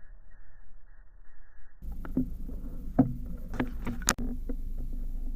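A muffled low hum, then after about two seconds a run of short knocks and clicks over a steady low rumble, with one very sharp crack about four seconds in.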